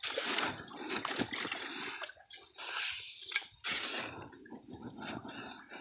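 Muddy water splashing and sloshing in a run of irregular bursts, as hands scoop and grope in a catfish hole in a dry river bed.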